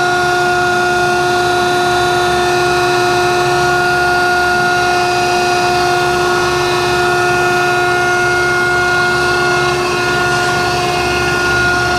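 High-speed internal grinding attachment of a Landis 1R universal cylindrical grinder, its spindle running at speed with a steady whine.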